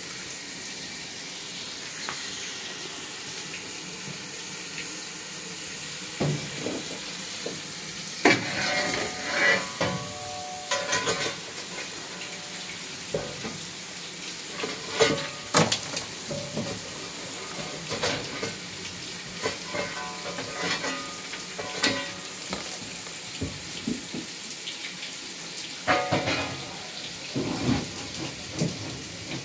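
Hot coal ash and glowing embers raked out of a steam locomotive's ashpan into a metal barrow: a steady hiss and sizzle as the embers steam, broken by irregular clanks and scrapes of the metal fire irons with short ringing, thickest about a third of the way in, mid-way and near the end.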